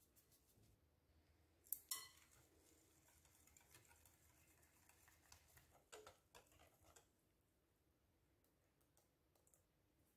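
Faint stirring of thick chocolate pancake batter in a glass bowl: soft scraping with small clicks of the utensil against the glass. There is a sharper clatter about two seconds in and again around six seconds, then it goes quiet for the last few seconds.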